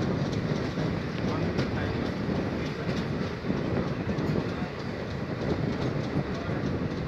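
Passenger train running at speed, heard from a coach window: a steady rumble of steel wheels on the rails with faint clicks now and then.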